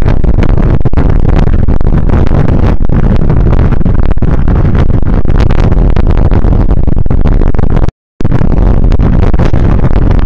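Loud wind buffeting on the microphone of a moving bicycle, with road rumble and small knocks from the bike. The sound cuts out completely for a moment about eight seconds in.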